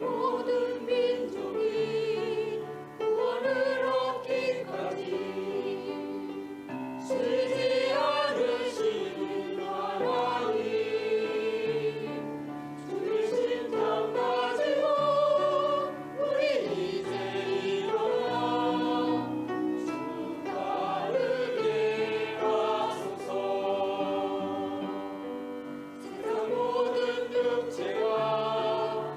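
Church choir singing a sacred anthem in parts, with vibrato on long held notes and a keyboard accompaniment beneath, pausing briefly between phrases.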